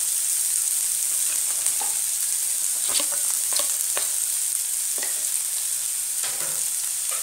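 Chopped onions frying in hot oil with mustard seeds, cumin and curry leaves in a nonstick pan: a steady sizzle. A few short light clicks come between about three and six seconds in, as pieces of green chilli drop into the pan.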